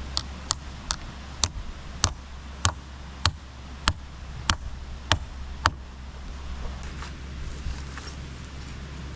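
Chopping on a cutting board: about eleven sharp, evenly spaced strikes, a little slower than two a second, stopping about six seconds in.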